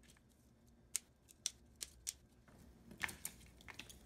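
Fresh asparagus spears snapped by hand, the tough woody bottoms popping off at their natural break point: a few separate sharp snaps, then a quicker cluster of small cracks about three seconds in.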